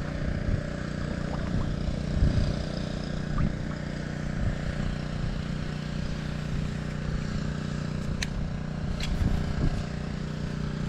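Steady low mechanical hum, with a few sharp clicks near the end.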